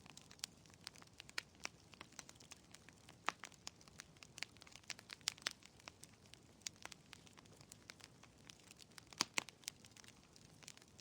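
Wood fire in a fireplace crackling: irregular sharp pops and snaps over a faint low hiss, with two of the loudest pops close together about nine seconds in.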